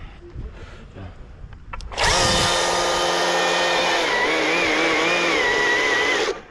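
Chainsaw run at full throttle for about four seconds, starting and stopping abruptly, its pitch wavering in the second half.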